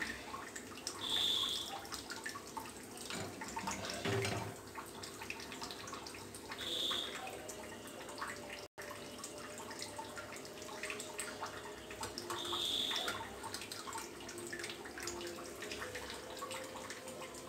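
Batter-coated green chillies (mirchi bajji) deep-frying in hot oil in a steel pan: a steady sizzle full of small crackling pops. A short high-pitched chirp sounds three times, about six seconds apart.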